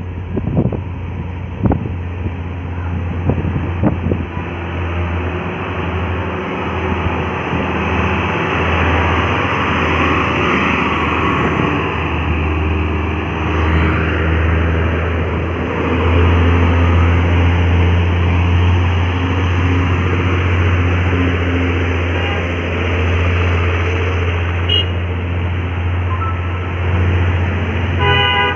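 Diesel engines of heavy trucks and buses labouring up a steep grade: a steady low drone that gets louder about halfway through as a vehicle comes close. A short horn-like tone sounds near the end.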